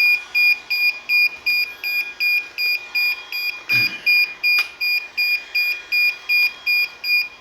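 Continuous electronic beeping from the drone equipment, about three short high beeps a second, evenly spaced. There is a brief soft noise about four seconds in.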